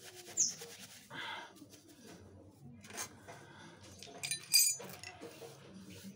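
Flint-and-steel: a steel striker scraped hard against a stone, giving a short cluster of sharp metallic clinks that ring briefly, a little after four seconds in. Before it, soft rustling of coconut fibre being handled, and a bird chirps in the background.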